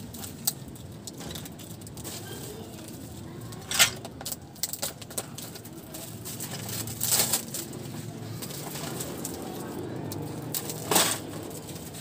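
Wire bird cage panels and parts being handled and fitted together, giving scattered clicks and clacks of metal wire; the sharpest knocks come a little under four seconds in, about seven seconds in and near the end.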